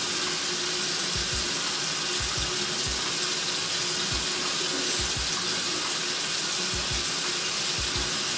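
Steady rushing hiss, like running water, with a faint steady hum beneath it and soft low thumps every second or so.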